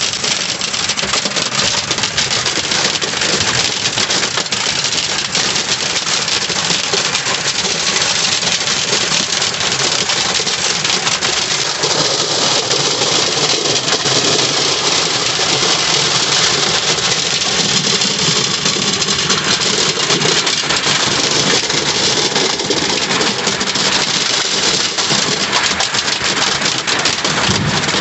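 Torrential rain from a supercell downpour drumming on a car's roof and windscreen: a loud, steady hiss packed with small hits, with the car's engine idling underneath.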